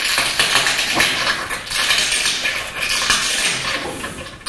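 Pressure flaking a small piece of glass on a wooden block: the tool tip grinds and scrapes along the edge, a continuous gritty scraping dotted with many small clicks as tiny flakes come off.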